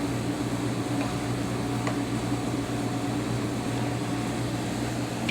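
A steady mechanical hum, fan-like, with a low drone and a few held tones, and two faint clicks about one and two seconds in.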